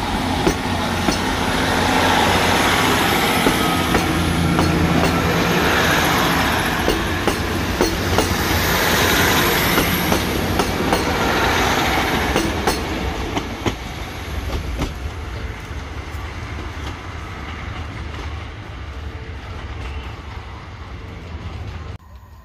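Class 150 Sprinter diesel multiple unit passing at close range, its diesel engines running under a steady rumble while the wheels click sharply over the rail joints. The sound fades over the second half as the train draws away.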